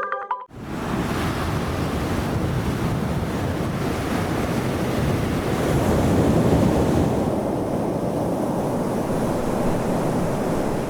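Mediterranean sea surf washing onto a sandy beach, a steady rush that swells in the middle, with wind rumbling on the microphone.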